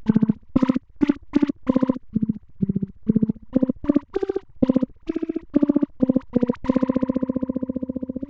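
Short pitched notes from a musical instrument, about two or three a second, played through a home-made feedback flanger set to full depth, a fast 15 Hz rate and strong negative feedback, with each note pulsing rapidly. Near the end one note is held and rings on, starting to fade.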